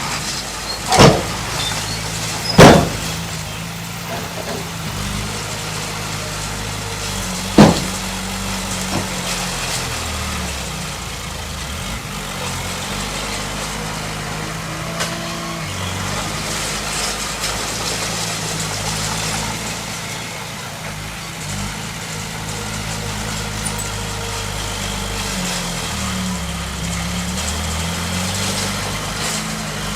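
Heavy diesel engine of earth-moving machinery running steadily, its pitch shifting up and down as the load changes. Three loud, sharp bangs come about one, two and a half, and seven and a half seconds in.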